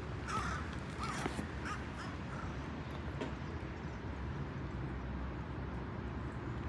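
About four short animal calls in the first few seconds, over a steady low background rumble.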